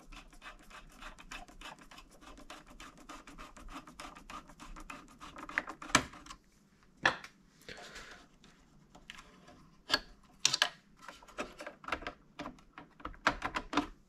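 Screwdriver turning out the screws of a desktop CPU heatsink, a quick run of fine clicks and scraping. Over the second half come a few sharper clicks and knocks as the cooler and its fan cable are handled.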